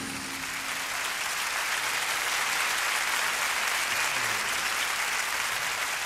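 Concert audience applauding steadily at the end of a song, with the last held note of the band dying away in the first second.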